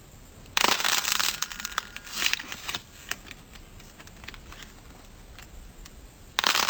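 Slime being squished and pressed, crackling and popping in loud bursts: one starting about half a second in, more around two to three seconds in, and another near the end, with quiet handling in between.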